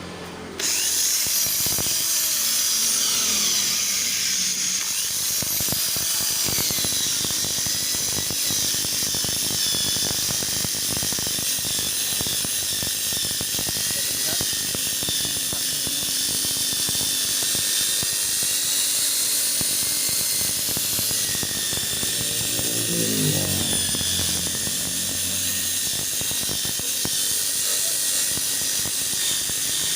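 Small electric polishing machine switching on about half a second in and running steadily with a high whine. It is buffing white polishing compound into a sanded plastic car headlamp lens.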